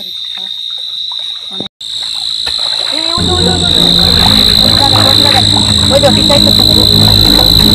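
Crickets and other night insects chirring steadily at a high pitch, with frogs calling. The sound cuts out briefly just under two seconds in, and from about three seconds a much louder low layer comes in underneath.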